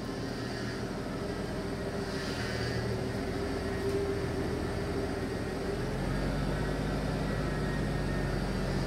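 1974 Ford F-250 pickup's 4.9-litre straight-six engine running at low speed as the truck pulls slowly forward, a steady hum that grows a little louder about six seconds in as it comes closer.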